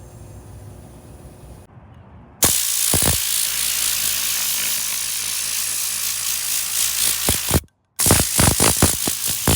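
Air blow gun on a Craftsman 6-gallon compressor blasting compressed air: a faint low hum, then a loud steady hiss starting about two seconds in, followed near the end by a quick string of short blasts as the trigger is pulsed.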